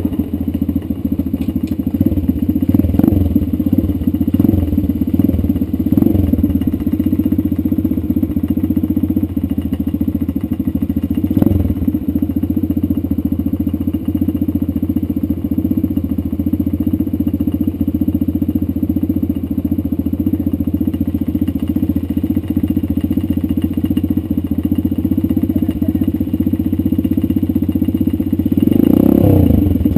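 Dirt bike engine running steadily while being ridden, heard close up from the bike itself, with small surges in the throttle; the engine note rises near the end.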